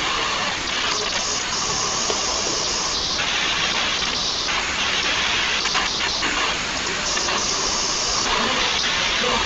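Steady rushing hiss of background noise picked up through a video-call microphone.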